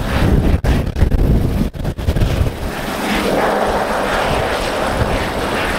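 Helicopter flying low overhead: a heavy, gusty low rumble for the first two and a half seconds, then a steadier, even rotor sound.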